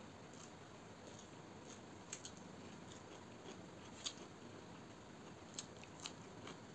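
Faint eating sounds as chicken curry and rice are eaten by hand from a steel plate: chewing, with a handful of short sharp clicks and smacks.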